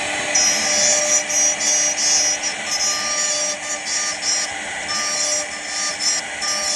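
CNC router running while it cuts wood. There is a steady spindle hum under cutting noise, and high-pitched whines start and stop every fraction of a second as the axis motors move.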